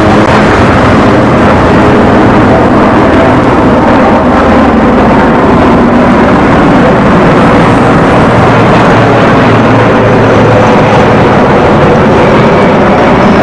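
Large military transport helicopter flying low overhead: a steady, loud wash of turbine and rotor noise.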